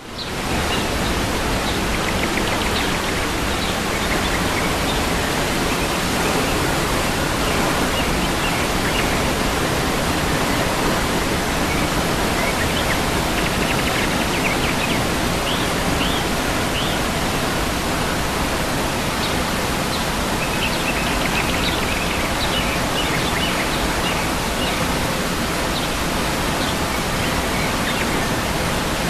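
Waterfall's steady, loud rush of falling water, with bird chirps faintly above it now and then, most of them around the middle and a little past it.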